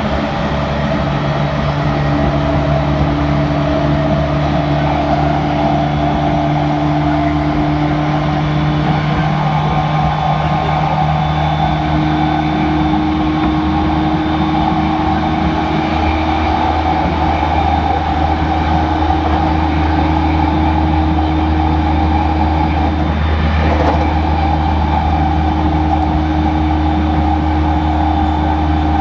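A stopped JR E231-series suburban electric train giving off a steady mechanical hum from its onboard equipment, with several constant tones and no rise or fall in pitch.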